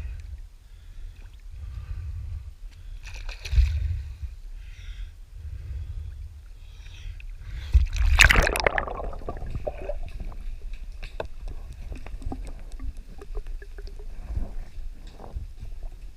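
Water sloshing and rushing along the hull of a sailing yacht under way in a choppy sea, over a steady low rumble, with one loud splash of a wave against the boat about eight seconds in.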